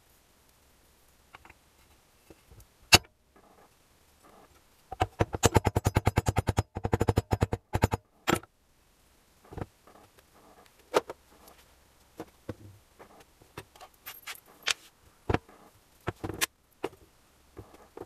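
Metal engine parts being handled on a workbench: clinks and knocks as a bearing and shaft are fitted into an aluminium crankcase cover and the cover is moved. In the middle there is a fast, even run of clicks lasting about three seconds, the loudest part.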